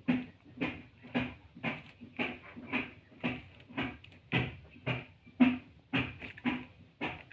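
Chicken clucking: a steady run of short clucks, about two a second.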